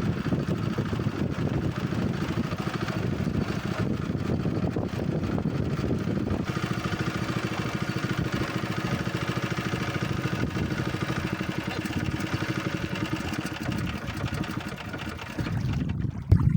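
Small boat's motor running steadily, with a hum whose note changes slightly about six seconds in.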